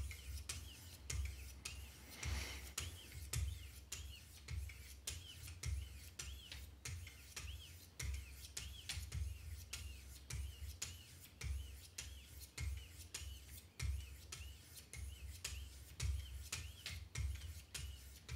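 Wicked Edge guided sharpener's 1000-grit stones stroking along a knife blade's edge, a rhythmic scrape about twice a second, each stroke with a dull knock and many with a short rising-and-falling squeak.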